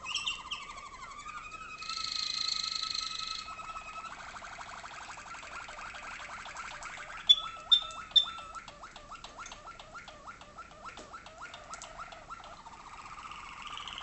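Waterslager (Malinois) canary singing a string of song tours. It opens with rising glides into a loud held whistled note, then runs into fast, evenly repeated rolling and bubbling water tours, with three sharp high notes in the middle. A rolling trill comes back near the end.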